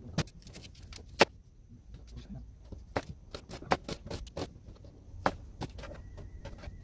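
Kitchen knife cutting an onion on a cutting board: irregular sharp knocks of the blade on the board, the loudest about a second in.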